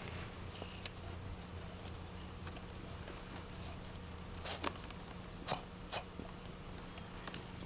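Domestic cat purring softly and steadily, with a few short sharp clicks a little past halfway through.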